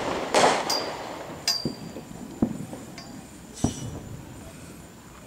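Fireworks going off: a short crackling, hissing burst, then four sharp separate bangs spread over the next few seconds, a couple of them with a brief ring after.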